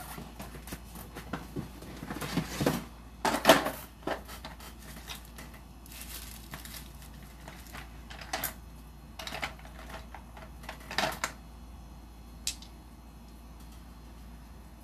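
Someone rummaging through nail supplies: scattered clicks, knocks and rustles of small items being picked up, moved and set down, busiest in the first two thirds and thinning to a single click before it goes still.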